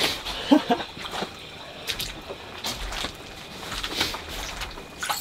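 A small perch being reeled up and pulled out through an ice-fishing hole on a spinning rod: scattered clicks and knocks from the reel and rod handling, with some water splashing and trickling. A short vocal sound comes about half a second in.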